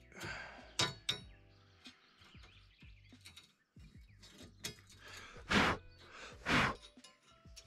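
Small hand tool scraping packed dirt out of the groove of a long chainsaw bar: a few short scraping strokes, the two loudest about a second apart in the second half.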